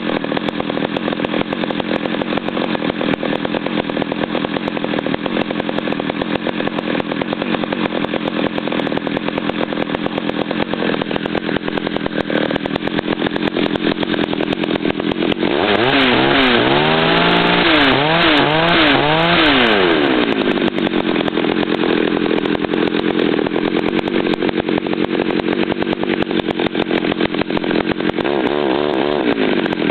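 Homelite 330 two-stroke chainsaw idling steadily, then revved up and down about four times a little past the middle before settling back to idle, with one more short rev near the end. It runs on a newly fitted carburettor rubber boot, nitrile fuel line, pulse line and oil line.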